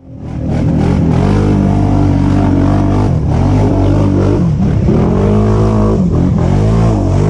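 A loud engine revving, its pitch dipping and rising again several times.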